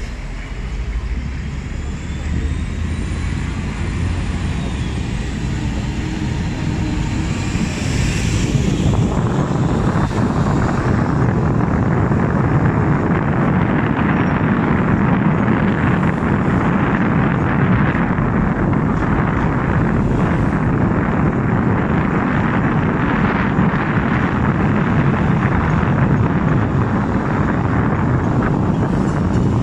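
Hong Kong double-decker tram running along its street tracks, heard from on board: a steady, loud rumble and rattle. About nine seconds in the noise swells sharply and stays loud as the tram gets moving.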